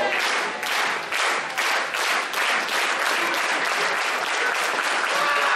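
Wrestling crowd clapping together in a steady rhythmic beat that fills the hall.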